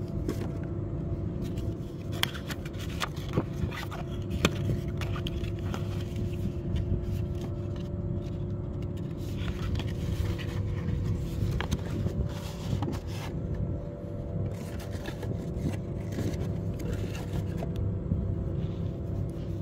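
A cardboard watch box being opened and handled: scattered scrapes, rubs and taps of the stiff card lid and flaps under the fingers, over a steady low rumble with a faint continuous hum.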